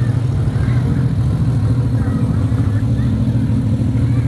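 A motor vehicle's engine running steadily, a constant low drone, with faint voices in the background.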